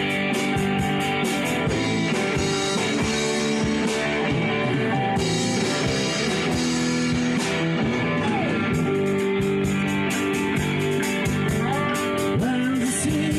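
Rock music instrumental passage: guitars playing over a steady drum beat, with no singing.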